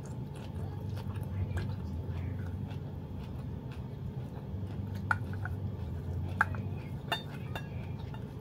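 Eating by hand: chewing leafy greens, with a few sharp clinks of the bowls as leaves are picked from them. The loudest clinks come about five and six and a half seconds in, over a steady low hum.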